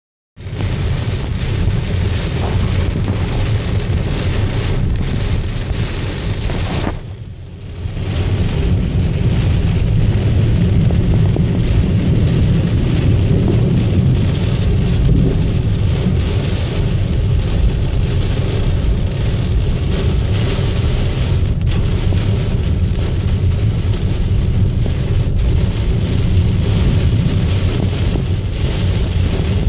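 Steady, loud rushing of water with a heavy low rumble under it, easing briefly about seven seconds in.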